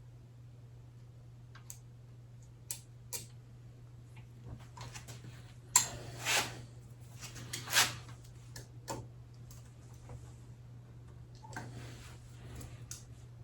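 Scattered clicks and clinks of metal tools and motorcycle fork parts being handled, with a few louder knocks about six and eight seconds in, over a steady low hum.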